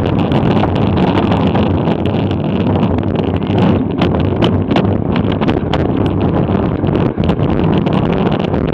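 Wind buffeting an action camera's microphone as a racing bicycle rides at speed, a loud steady rush. From about halfway on, a scattering of sharp clicks or knocks cuts through.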